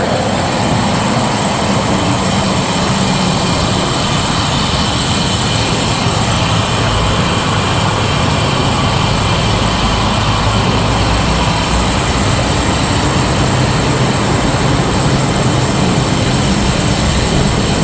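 Steady rush of heavy freeway traffic mixed with wind on the microphone, with faint engine hums coming and going underneath.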